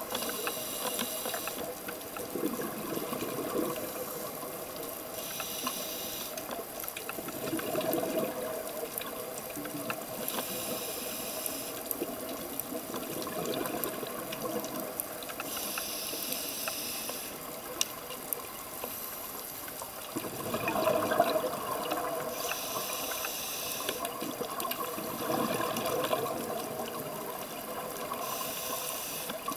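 Scuba diver breathing underwater through a demand regulator: a hiss on each inhalation about every five to six seconds, alternating with bubbling exhalations.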